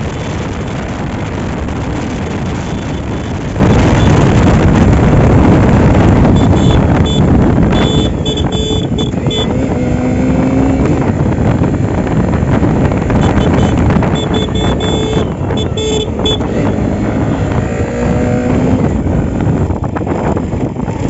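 Motorcycle riding at road speed: the engine running under heavy wind buffeting on the microphone, which gets much louder about three and a half seconds in. A few brief higher tones come and go over it about halfway through and again later.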